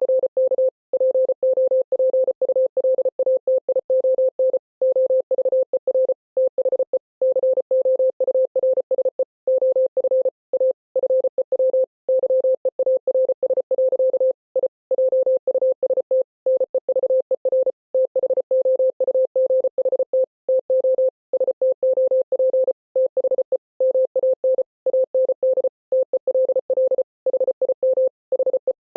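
Morse code as a rapid on-off beeping tone at one steady pitch, dots and dashes keyed in quick succession with short gaps between them.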